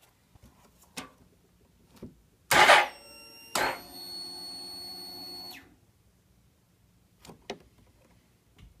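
2001 Suzuki GSX-R1000's electric fuel pump priming: a loud short clatter, then a steady whine for about three seconds that winds down as the pump stops. A few light clicks follow, and the starter does not crank.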